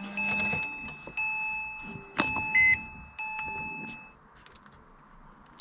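Electronic chime in a 2005 Porsche 911 (997) cabin, striking about once a second and fading after each ding. About two and a half seconds in there is a click and a short beep.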